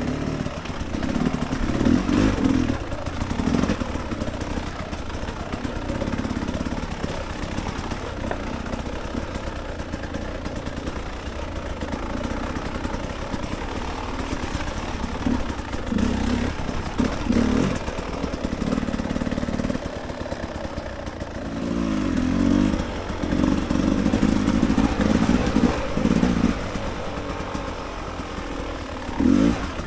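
Dirt bike engine on a rough singletrack trail, the throttle opened and closed over and over so the engine note keeps rising and falling, with the strongest run of throttle about three-quarters of the way through.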